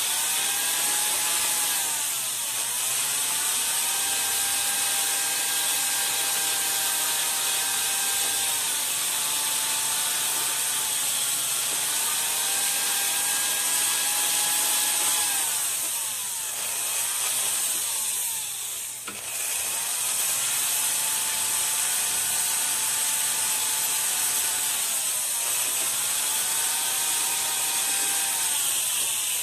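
Jeweler's flex-shaft rotary tool whining as it polishes the shoulders of a ring to take out plier marks. Its motor pitch drops and climbs back several times as the speed is eased off and brought back up, over a steady hiss.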